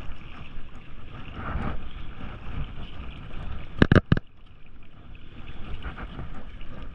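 Wind buffeting the microphone over water washing against jetty rocks, with three sharp knocks in quick succession about four seconds in.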